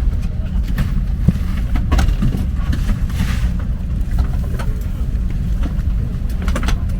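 Airbus A330-300 cabin ambience at the gate: a steady low rumble of air-conditioning and airflow, with scattered light clicks and knocks from the cabin.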